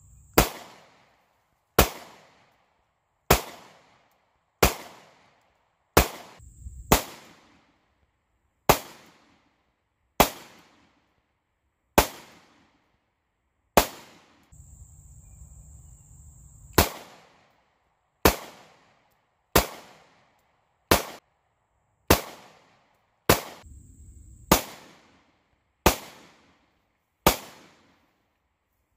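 9mm pistol shots from a Sig P365 and a Taurus G3C firing Monarch (PPU) brass-cased ammunition: about twenty single shots at a slow, even pace, roughly one every one and a half seconds, each a sharp crack with a short echoing tail.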